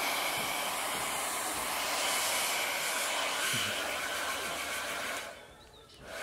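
Handheld electric hair dryer blowing, a steady loud hiss of air with a faint motor whine. It drops away about five seconds in and comes back on just before the end.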